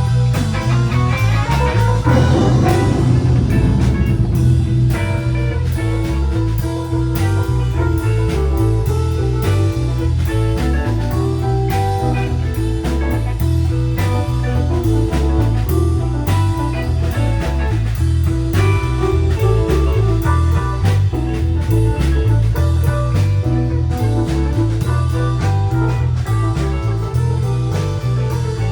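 Background music: a blues-rock track with electric guitar over a steady drum beat.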